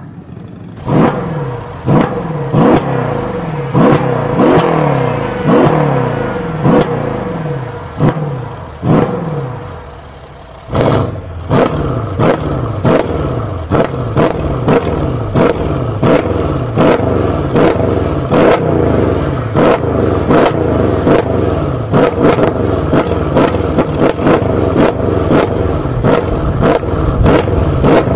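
V8 engine revved in repeated quick throttle blips, the revs rising sharply and falling away after each one. From about eleven seconds in the blips come faster, roughly two a second.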